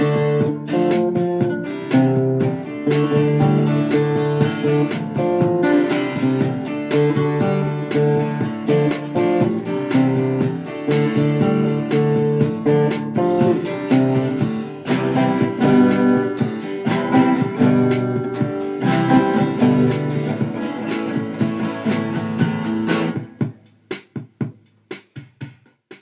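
Acoustic guitar played solo, a steady flow of quickly picked notes and chords. The playing stops about 23 seconds in, followed by a few soft closing notes.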